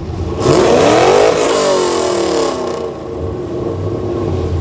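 Car engine revved hard: the pitch climbs sharply for about a second, then winds back down over the next second or two, with loud exhaust noise. A lower engine rumble follows near the end.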